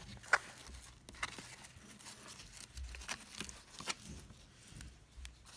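Scattered rustles and light clicks of cardboard and paper craft materials being handled, the sharpest click about a third of a second in.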